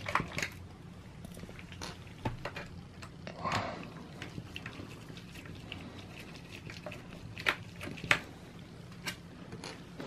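Small Phillips screwdriver turning out the bottom-cover screws of a Dell Latitude E6520 laptop: faint scattered ticks and clicks of the bit in the screw heads, with light handling scrapes of the case and two sharper clicks in quick succession late on.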